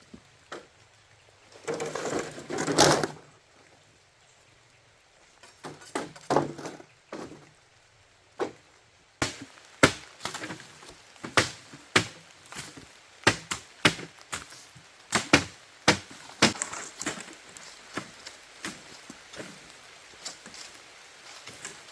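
Wood being chopped with a blade: a splintering crunch about two seconds in, a few scattered knocks, then from about nine seconds a run of sharp, irregular chops, roughly one or two a second.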